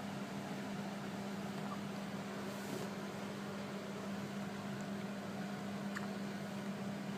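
Steady low hum over a faint even hiss, with a couple of faint clicks.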